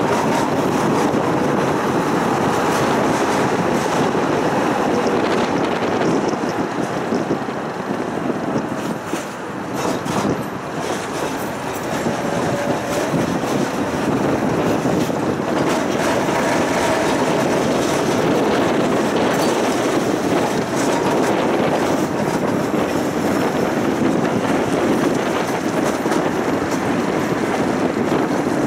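Tram running along its tracks: a steady noise of wheels on rail and the moving car, dipping in level for a couple of seconds about nine seconds in.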